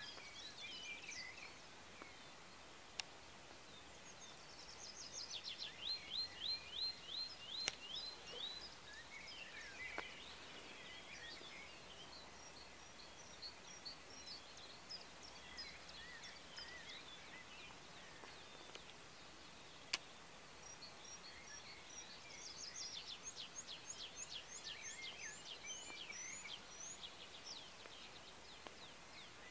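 Songbirds singing at a woodland edge: quick runs of repeated, sweeping high notes about six seconds in and again from about 22 seconds on, with scattered chirps between, over a faint steady hiss. A few sharp clicks stand out.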